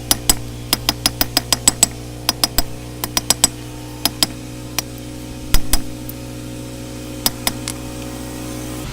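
Hand hammer striking a hot steel knife blade on an anvil, each blow ringing, in quick runs of about three blows a second broken by short pauses; the blacksmith is hammering in the blade's bevels. A steady hum runs underneath.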